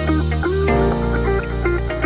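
Background music: short plucked notes, some bending in pitch, over a steady bass line.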